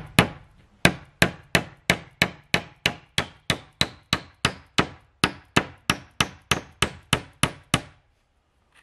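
Hammer blows on the lower boards of a wooden plank wall, a steady run of sharp strikes at about three a second that stops abruptly near the end.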